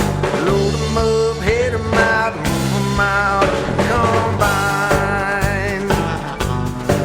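Country-style song in an instrumental passage: a steady drum beat and bass under a wavering lead melody.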